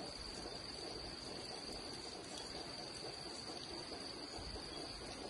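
An insect chorus, cricket-like, keeping up a steady high-pitched drone, with a soft even hiss beneath it.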